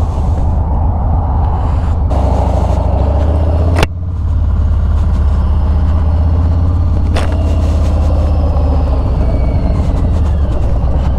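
2018 Harley-Davidson Sport Glide's Milwaukee-Eight V-twin running steadily through a Bassani Road Rage 2-into-1 exhaust while riding at low speed. A sharp click about four seconds in is followed by a brief dip in level.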